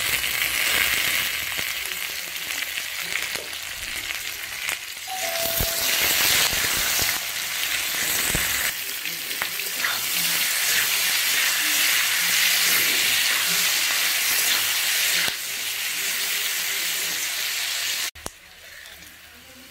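Sliced potatoes sizzling in hot oil in a steel wok while a metal spatula stirs them, with a few sharp knocks of the spatula against the pan. Near the end the loud sizzle cuts off suddenly and a much quieter sizzle follows.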